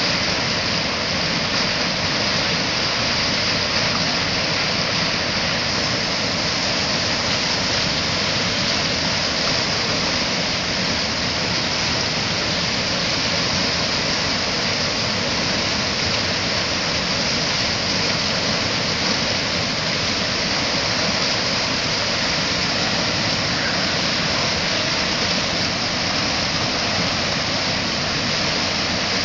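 River in flood spilling over a mill dam and churning through white-water rapids below it: a steady, loud rush of water that never lets up.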